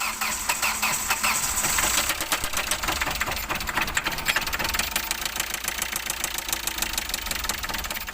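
Hyundai i20 diesel engine running with a loud, rapid, steady knocking clatter: the excessive engine noise the mechanic is diagnosing, which comes with black and white smoke.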